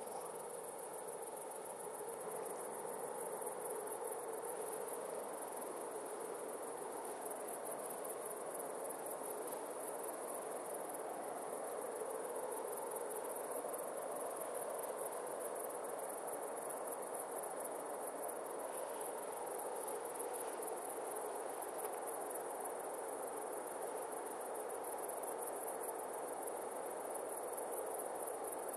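Crickets chirring at night: a continuous high-pitched, rapidly pulsing trill. Beneath it a steady low rumble that grows slightly louder after the middle.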